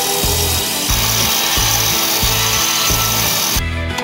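Table saw cutting a pallet board, a steady high hiss that stops abruptly near the end. Background music with a steady beat plays throughout.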